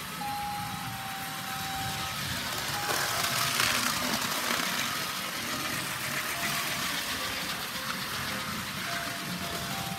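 Electric model trains running on the layout's track: a steady whirring with a thin whine that comes and goes, a little louder about three to five seconds in.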